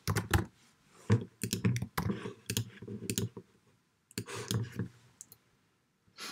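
Typing on a computer keyboard, with clicks: a run of quick keystrokes, a pause about three seconds in, another short flurry, then a single click near the end.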